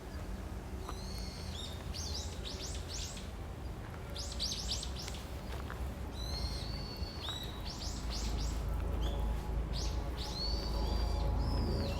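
A small songbird singing in the forest: about four short phrases of quick, high, falling notes, each ending in a steadier whistle, a few seconds apart, over a low steady rumble.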